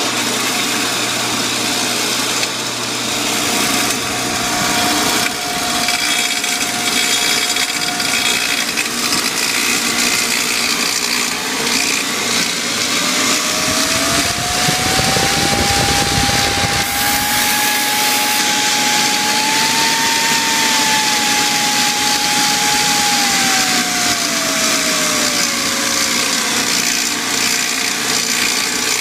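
Shopsmith Mark V woodworking machine running, its motor whine rising in pitch as the variable speed is turned up, holding, then falling as the speed is brought back down. The owner is listening for a tapping noise at high speed, which he suspects is a spring tapping on the inside of its cup.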